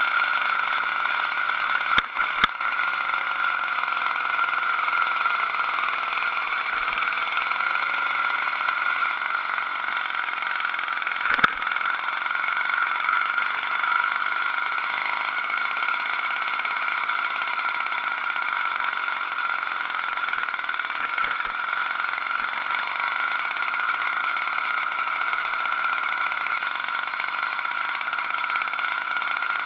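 80cc two-stroke motorized-bicycle engine running steadily under way, a constant drone. A few sharp knocks are heard, two about two seconds in and one near eleven seconds.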